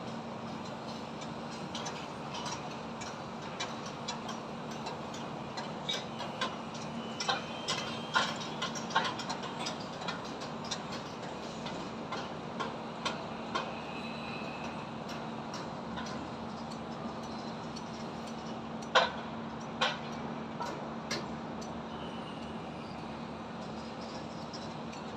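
High-rise construction site: irregular sharp knocks and taps of building work, a few louder ones near the end, over a steady hum and a constant wash of background noise.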